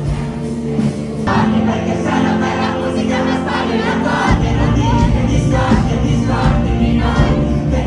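Live pop concert music with the audience singing along loudly as a crowd, close voices of young women among them. The sound changes abruptly about a second in, and a heavy low beat comes in about four seconds in.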